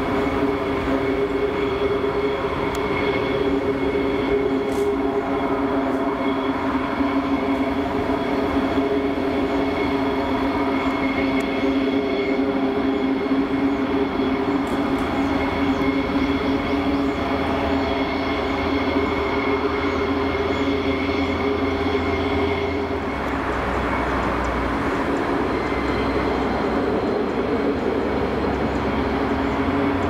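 F-15E Strike Eagle's twin turbofan engines at taxi power: a steady jet whine and drone with several held tones, dipping slightly about 23 seconds in.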